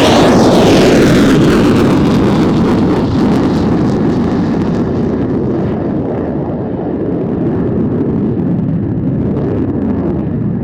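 Airbus A400M's four turboprop engines in a loud low pass: the pitch drops as it goes by just at the start, then a steady heavy drone slowly fades as it moves away.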